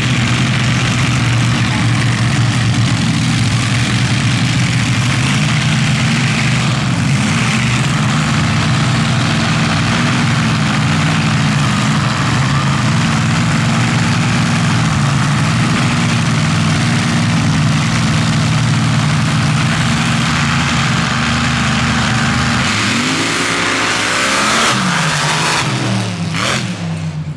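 Open-paddle-class dirt drag car's engine running at idle at the start line, then revving hard as the car launches about 23 seconds in, its pitch rising through the run and fading as it pulls away near the end.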